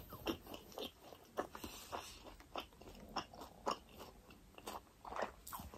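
Faint close-up chewing of a fried momo, with small irregular mouth clicks and crunches.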